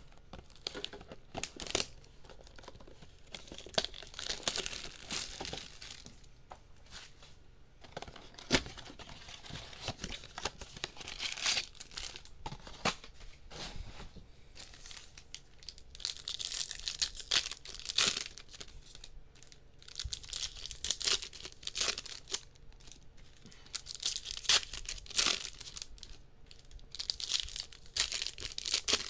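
Plastic wrap and foil trading-card packs being torn open and crinkled, in irregular bursts of crackling with sharp clicks between them, as a Topps Chrome blaster box is opened.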